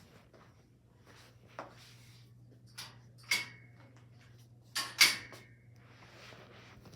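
A few separate knocks and clatters over a steady low hum; the two loudest, about three and five seconds in, each leave a brief ringing tone.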